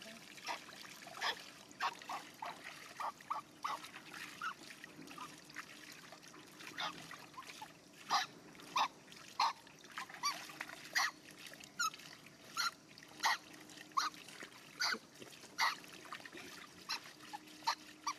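Water trickling from a plastic pipe into a metal basin and spilling over its rim, with frequent short splashes and plops as water is scooped and sloshed over a baby monkey being bathed.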